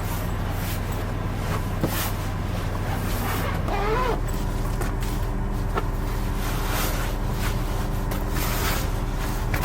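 A vehicle engine running steadily, its low pitch shifting about four seconds in, with a brief wavering tone near the same moment.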